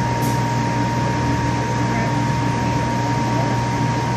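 Steady machine noise of a glassblowing studio's gas-fired glory hole and blowers running: a constant low hum with a steady high whine on top.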